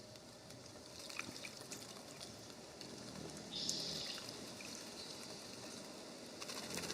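Water trickling and splashing lightly at a bird bath, with faint small ticks. A short, high, buzzy sound about three and a half seconds in.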